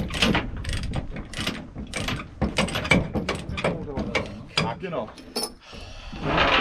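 Ratchet chain binder being worked, a quick run of ratcheting clicks about four a second as the lashing chain is tensioned to hold a combine harvester down on a low-loader trailer. The clicking stops briefly a little after five seconds in.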